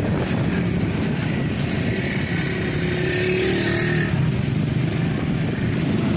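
Steady running noise of a motor vehicle on the move, heard from on board: engine hum and road noise that holds even throughout.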